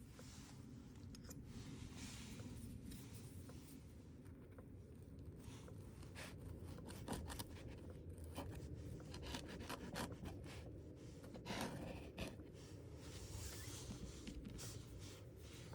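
Faint handling sounds: light rubbing, rustling and scattered small clicks over a low steady hum.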